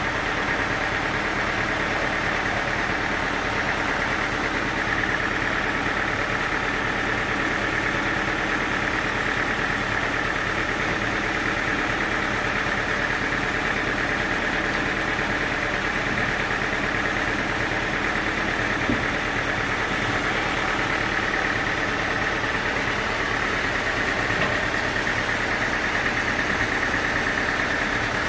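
Sawmill engine running steadily at an even pitch, with no cut starting or stopping.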